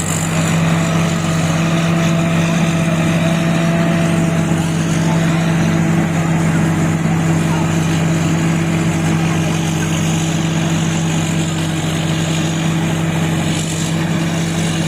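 Rice combine harvester's diesel engine running steadily at working speed, a constant low drone with mechanical rattle over it as the machine cuts the paddy.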